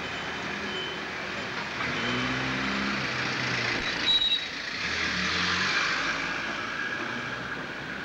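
Road traffic going by at the crossing: a vehicle passes, loudest about halfway through, with a short high squeal about four seconds in.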